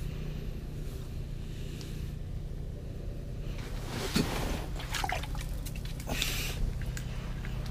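Water trickling and dripping, with brief handling scrapes, as a hand works at an ice-fishing hole. They come about four, five and six seconds in, over a steady low hum.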